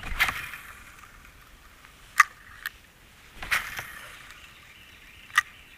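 Two casts with a fishing rod, each a brief whoosh. Three sharp clicks from the rod and reel come about two seconds in, just after, and near the end; the first and last are the loudest.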